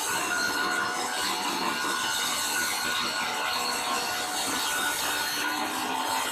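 Mini table saw running steadily, its blade cutting through wood.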